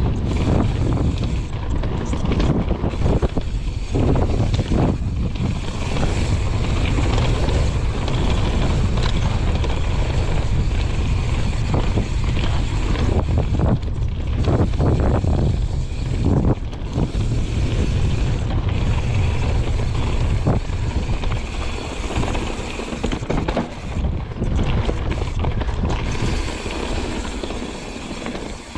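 YT Jeffsy full-suspension mountain bike descending a dirt trail: tyres rolling over rough ground with frequent rattles and knocks from the bike over bumps, under a constant rumble of wind on the microphone.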